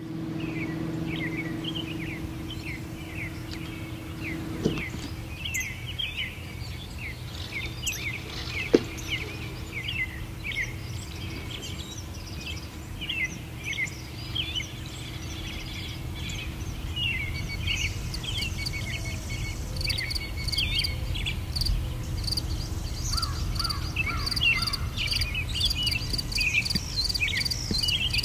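Many birds chirping and calling in a steady stream of short chirps over a low outdoor rumble. From about two-thirds of the way through, a fast, evenly pulsing cricket-like chirr joins in. There is a single sharp click about nine seconds in.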